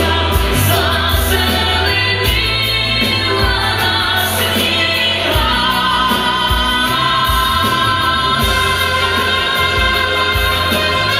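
Ukrainian pop song: a sung vocal line over a backing arrangement with a steady beat.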